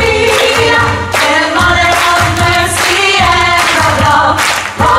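A women's choir sings a lively gospel-style song over a band with a steady beat.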